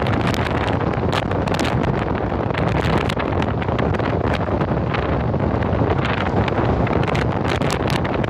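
Steady road noise of a vehicle driving on a wet road, with engine and tyre hiss and many short ticks.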